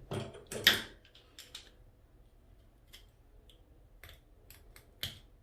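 Clicks and scraping of small faucet-aerator parts being handled and picked clean: a burst of scraping in the first second, then scattered light clicks.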